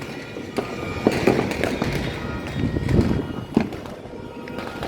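Fireworks going off: a run of bangs and crackling, with the loudest burst about three seconds in.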